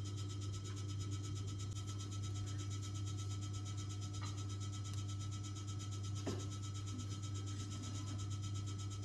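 A steady low hum with a fixed higher whine above it, unchanging throughout, with two faint clicks about four and six seconds in.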